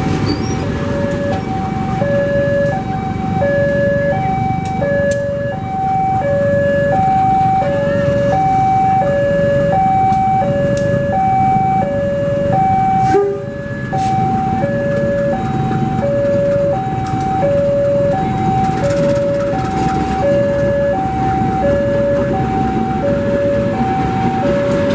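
Railway level-crossing warning alarm sounding an even two-tone chime, alternating high and low without pause. Under it is the low running noise of a diesel locomotive passing close by on a shunting move.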